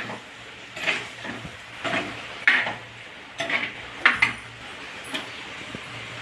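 A ladle stirring chicken gravy in a cooking pot, scraping and clinking against the pot in separate strokes about once a second, with a faint steady hum underneath.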